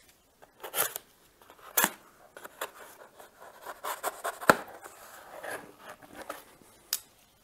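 Hand-tool work on parts inside a planer's top casting: scattered metal clicks, scrapes and rubbing, with one sharper knock about four and a half seconds in.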